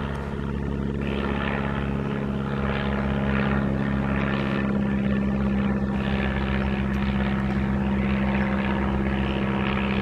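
Boat engine running steadily at a constant pitch, a low even hum with a strong steady tone, starting abruptly.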